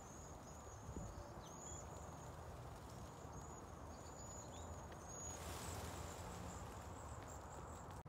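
Faint outdoor ambience: a steady low rumble with short, very high chirps repeating throughout, and a brief rise of hiss about five and a half seconds in.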